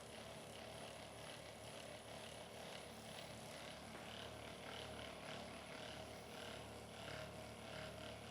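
Quiet steady hum of room tone, with faint soft rustles now and then.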